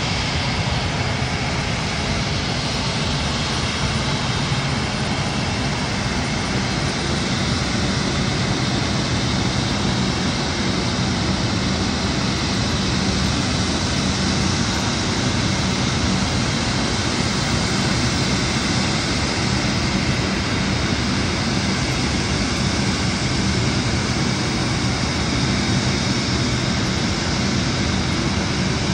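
Boeing 747 freighter's jet engines running at taxi power as it rolls along the taxiway: a steady rush of engine noise with a faint high whine.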